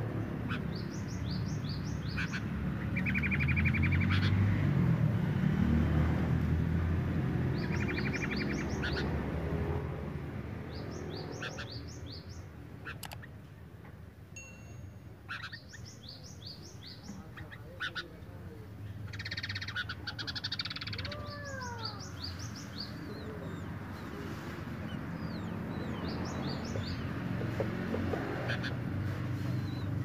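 Sooty-headed bulbuls chattering: short bursts of quick, high, harsh notes every few seconds, with a buzzy trill twice in the first third. These are the excited calls of a male and female in breeding condition.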